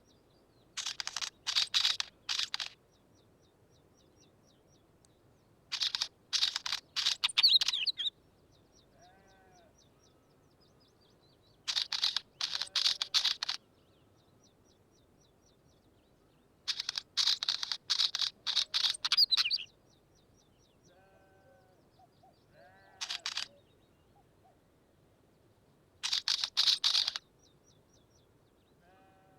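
Wheatear singing: short phrases of rapid, harsh notes, about one to two seconds each and repeated roughly every five seconds. Fainter, lower calls come in some of the pauses.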